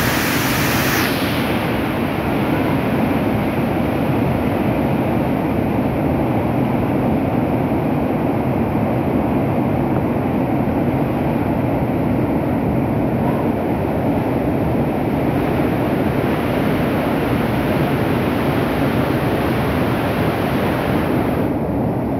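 Mountain stream rushing over boulders: a loud, steady roar of whitewater. Its upper hiss drops away about a second in, leaving a deeper, duller rush.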